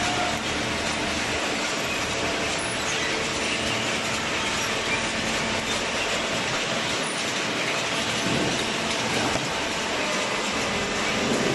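Steady industrial machinery noise from a hydraulic waste-carton baler running, an even din with faint clatter and no distinct strokes.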